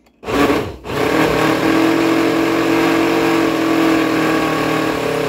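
Hamilton Beach countertop blender running with a glass mason jar fitted to its blade assembly, blending a smoothie: a short burst, then from about a second in the motor runs steadily with a steady hum.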